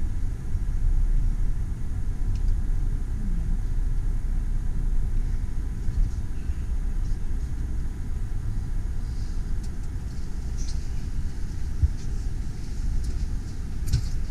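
Low, steady rumble of a train carriage rolling slowly on rails onto a ferry's rail deck, heard from inside the carriage, with an occasional short knock.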